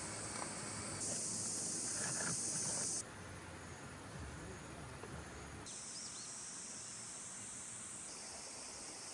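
A steady, high-pitched chorus of summer insects. Its level and pitch shift abruptly every two or three seconds.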